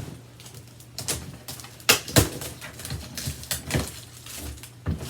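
Cardboard shipping box and its packing being handled and pulled open: a run of irregular crackles, scrapes and knocks, the sharpest about two seconds in.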